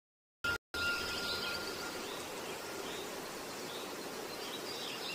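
Birds chirping repeatedly over a steady background hiss of outdoor ambience, starting after a brief silence and a short burst at the very beginning.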